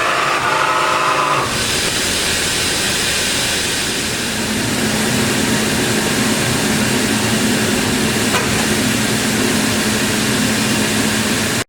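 Bridgeport Torq Cut 22 CNC vertical machining center running: a whine made of several steady tones cuts off about 1.5 s in, leaving a steady loud hiss, with a low hum coming in about halfway.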